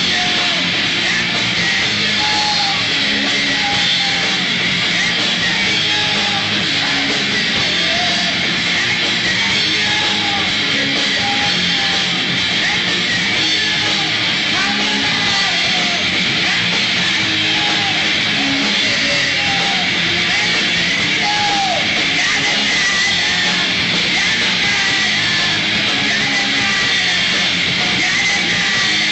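A live heavy rock band playing loudly and without a break, with distorted electric guitar at the front of the mix.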